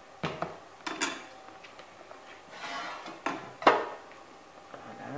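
A metal spoon and a plastic spatula knocking and scraping against a plastic mixing bowl while cake batter is scraped out into a loaf tin: a handful of sharp knocks, the loudest about three quarters of the way through, with a short scrape between them.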